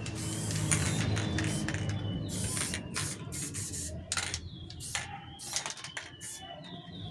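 Aerosol spray-paint can hissing in repeated short bursts as paint is sprayed onto a wall, with steady low tones underneath.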